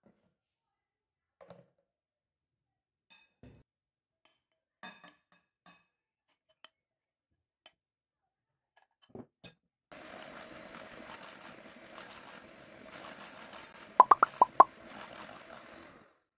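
Faint scattered clicks and scrapes of a spatula against a glass bowl as lemon mixture is folded into whipped cream. About ten seconds in, an electric hand mixer starts beating the cream and runs steadily. Near the end come four quick, loud plopping pops.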